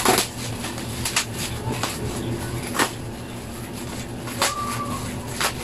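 Scattered knocks, taps and scrapes of a cardboard shipping box being handled and opened, the loudest at the very start, over a steady low hum.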